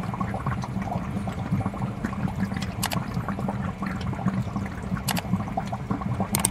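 Underwater ambience: a dense, muffled water rumble with scattered crackles and a few sharp clicks.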